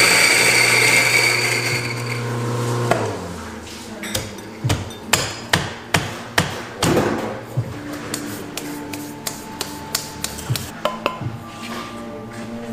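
Electric coffee grinder running with a steady hum and whine for about three seconds, then stopping. This is followed by a long run of sharp taps and knocks on the grinder and its grounds cup.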